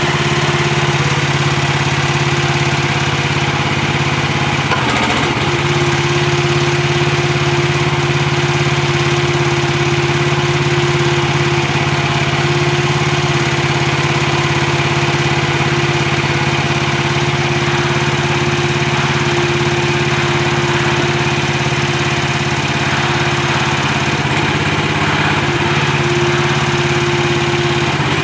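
Small gasoline engine of a 1-ton mini excavator running steadily, with a higher steady tone joining about five seconds in.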